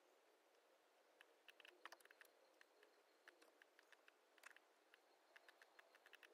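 Faint, irregular clicking of laptop keys and mouse buttons, a few clicks at a time and sometimes in quick runs, over quiet room tone.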